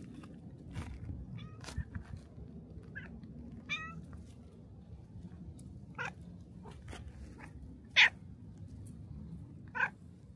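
A black cat meowing in short calls, about six of them, the loudest about eight seconds in.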